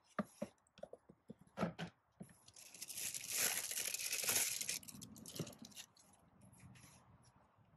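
Packaging being handled: a few light clicks and rustles of a cardboard box, then a couple of seconds of plastic wrap crinkling and tearing as a small 12-volt power adapter is unwrapped, dying down to faint handling noises.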